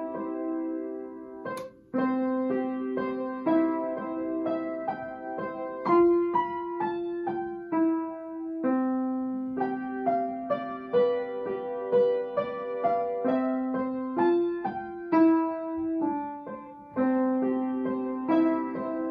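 An upright piano played solo: a slow melody over long held low notes. The playing breaks off briefly with a sharp click about a second and a half in, then carries on.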